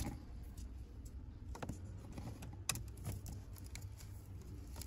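A few faint clicks and knocks of a plastic cable connector being handled and pushed into a car's OBD port under the dashboard, the sharpest click a little under three seconds in.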